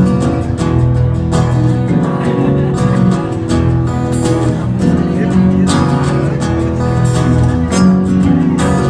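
Instrumental break of a song: a guitar strummed in a steady rhythm.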